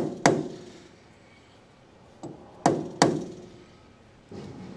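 Soft-faced blow hammer tapping a wheel hub held in a lathe's four-jaw chuck, each tap with a short metallic ring. There is one tap near the start, then a light tap and two firmer ones about a third of a second apart a little past two seconds in. The taps bump the hub's high spot toward true while it is being indicated.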